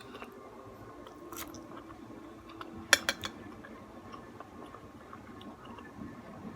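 Eating utensils clinking against a dish: a sharp clink about a second and a half in, then a louder cluster of clinks about 3 seconds in.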